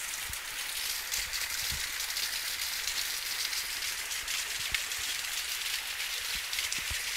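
Small spring-fed waterfall spilling down a rock face and splashing onto stones: a steady, even hiss of falling water.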